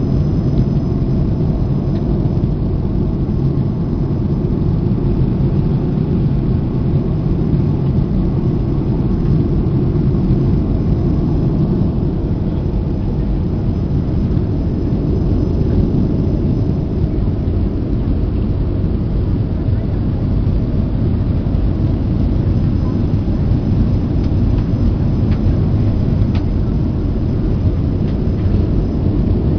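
Steady cabin noise of a jet airliner in cruise flight: engine and airflow noise, strongest low down and even in level throughout.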